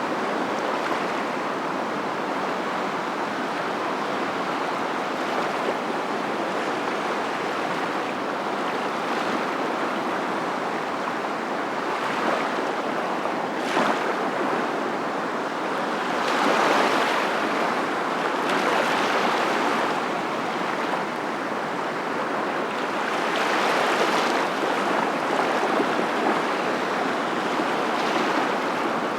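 Continuous rushing water, swelling louder every several seconds, as of surf washing in.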